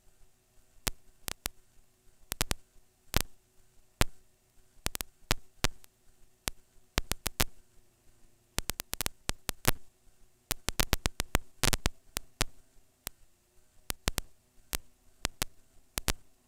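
Irregular sharp clicks and crackles, several a second with short quiet gaps, over a faint steady hum, as picked up by the camera riding on a flying Cheerson CX-20 quadcopter.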